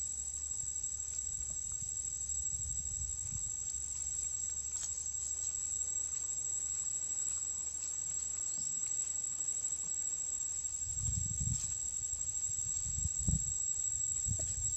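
Steady, high-pitched drone of insects, with a few dull knocks of a large knife cutting a plucked duck on a wooden log, mostly in the last few seconds.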